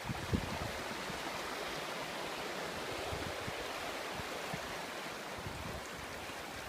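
Swollen, fast-flowing floodwater of a river rushing steadily, with one brief knock just after the start.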